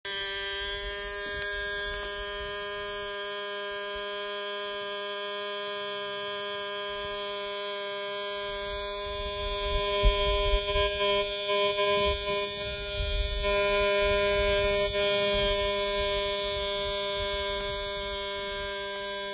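Small electric fuel pump on a model-flying field box running steadily, a constant buzzing whine. Some low rumbling and a few light knocks from handling come in the middle.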